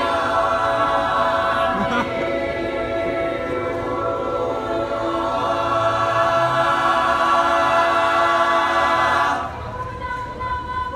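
Mixed-voice chamber choir singing a cappella, holding full sustained chords that shift a couple of times. The chord cuts off sharply about nine and a half seconds in, leaving a softer held tone.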